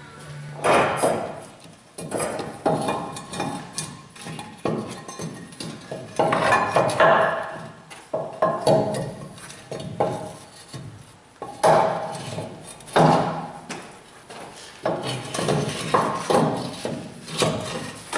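Exhaust manifold being wiggled out of a Hemi V8's engine bay, knocking and scraping against the surrounding metal in irregular clanks and rattles.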